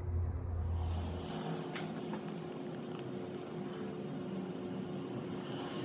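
A steady machine-like hum with a faint constant tone, and a few light clicks and taps. A lower rumble drops away about a second and a half in.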